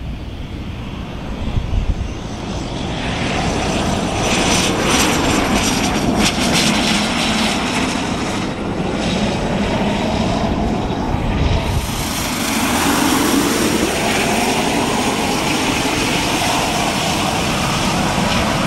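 Let L-410 Turbolet twin-turboprop engines and propellers running as the airplane rolls past on the runway. The sound grows louder over the first few seconds, and the engine note drops in pitch as the airplane goes by, about two-thirds of the way in.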